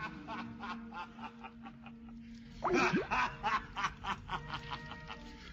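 A person laughing in quick repeated bursts, getting louder about halfway through.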